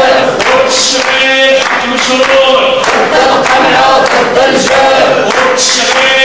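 A crowd of women and men chanting loudly in unison, clapping their hands in time.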